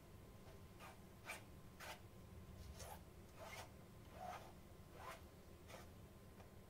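Faint swishing of a paintbrush dragged through thick wet paint on a canvas, about eight soft strokes.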